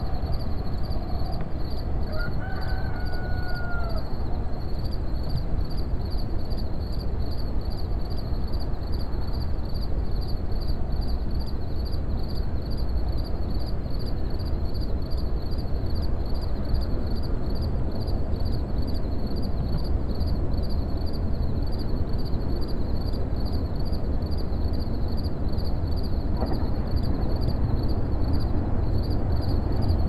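Outdoor early-morning ambience: a steady low noise, a high insect chorus pulsing a few times a second, and one drawn-out bird call about two seconds in.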